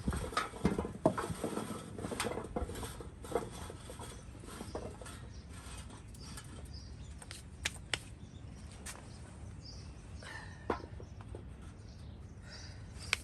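Handling noise: scattered knocks and rustles, busiest in the first three seconds, then occasional single clicks, with a few faint short high chirps.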